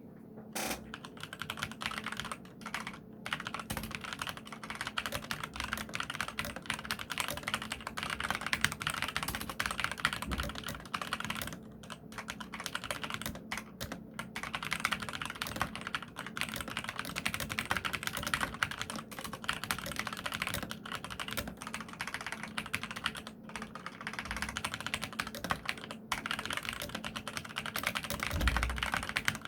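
Continuous fast typing on a mechanical keyboard with Kailh red linear switches (Skydigital NKeyboard NKey-R3 RGB): a dense run of key clacks with a few short pauses, and a low thump near the end.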